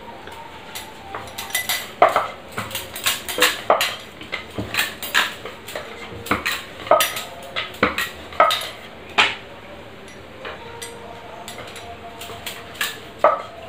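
Wooden rolling pin knocking and clattering on a wooden rolling board as puris are rolled out: irregular sharp knocks, sparser for a few seconds near the end.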